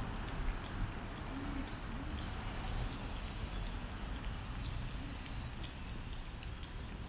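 City street traffic: a steady low rumble of passing vehicles. A thin high-pitched whine sounds twice, from about two seconds in for over a second, then briefly again about five seconds in.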